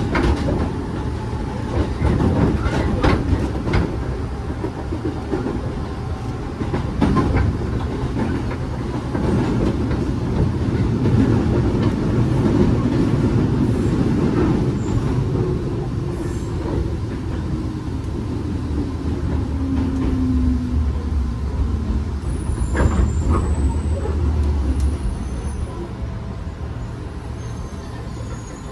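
Interior running noise of a 205 series 3100 subseries electric train: a steady rumble of wheels on the rails and the traction motors, with the clatter of wheels over rail joints a few times. The noise eases off somewhat near the end.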